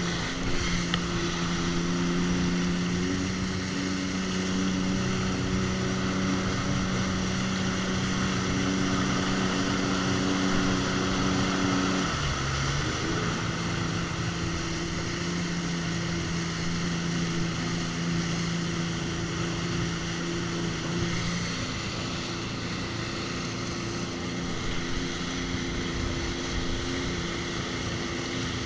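Jet ski engine running steadily at cruising speed, with a steady hiss over it. About twelve seconds in the engine note drops briefly as the throttle eases, then comes back up.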